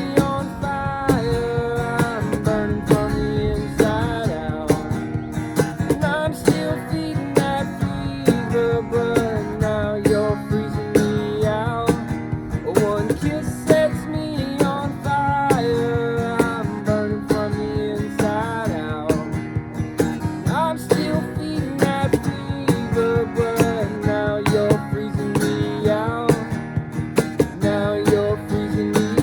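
Instrumental break in a band's song: guitar lines with sliding, bent notes over a steady beat.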